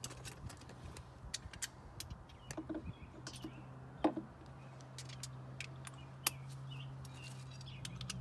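Scattered light clicks and metal clinks of hand tools, a socket and breaker bar being fitted to the lower control arm bolts, over a low steady hum. A few faint bird chirps.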